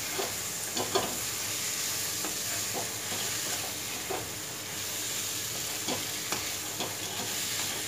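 Metal spatula stirring and scraping kidney beans through sizzling tomato masala in a kadhai, with a steady frying hiss underneath and a few sharper, uneven scrapes against the pan.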